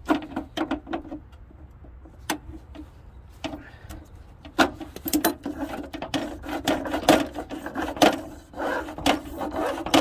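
2001 VW Passat window regulator being worked by hand: repeated metal clicks, knocks and rattles of the regulator parts, sparse at first and much busier from about halfway through.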